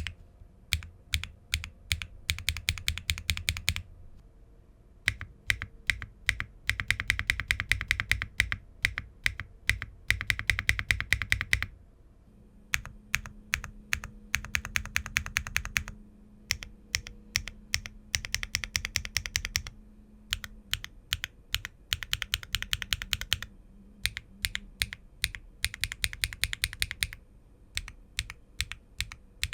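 Typing on a gasket-mounted aluminium-cased 65% mechanical keyboard with HMX linear switches, an aluminium plate, no foam and ABS Cherry-profile keycaps: fast runs of keystrokes in bursts of a few seconds, broken by short pauses.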